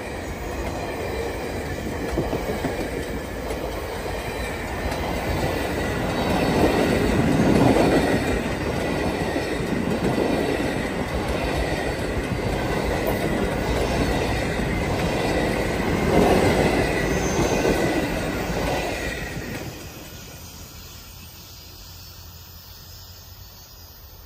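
VIA Rail passenger train's cars rolling past over a level crossing: a rumble and clatter of wheels on the rails, with a thin steady high wheel squeal. About 20 seconds in the last car passes and the sound drops away sharply to a much quieter background.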